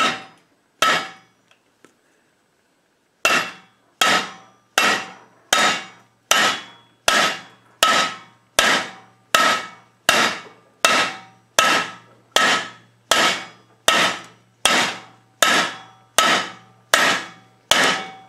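Hammer pounding a lead ball flat on a steel block, beating it into a disc. Two blows, a pause of about two seconds, then a steady run of blows at about four every three seconds, each with a short metallic ring.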